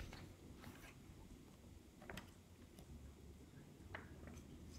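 Near silence with a few faint, short rustles and soft clicks as a hardcover picture book is opened and its pages are handled.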